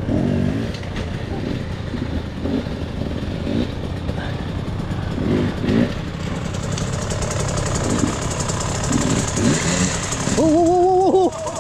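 Several dirt bike engines running, one idling close by while others ride up and slow behind it. About ten seconds in, a loud drawn-out call rises, holds and falls over the engines.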